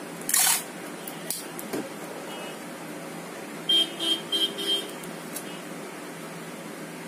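Black insulating tape being torn off its roll with a short loud rip, followed by a couple of light clicks, while the glass panels of a tank are taped together. Near the middle comes a quick run of four or five short, high squeaks as more tape is stretched off and pressed onto the glass.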